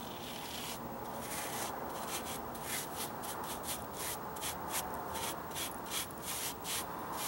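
Small brush scrubbing and dabbing stucco patch material onto a rough stucco column: a dry, scratchy rub with each short stroke, about three strokes a second.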